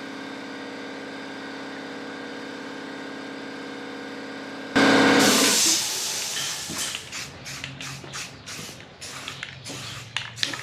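A steady mechanical hum, then, about five seconds in, an aerosol can of rust-preventive paint spraying: one long loud hiss followed by a series of short bursts.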